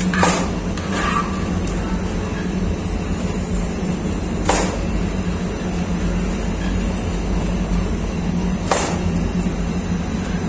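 Lavash dough sheeting machine running with a steady low hum, with a sharp clack about every four seconds, three times.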